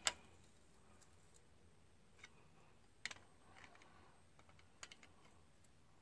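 Near silence broken by a few single sharp clicks: one right at the start, then others about two, three and five seconds in, from a torque wrench and socket being handled.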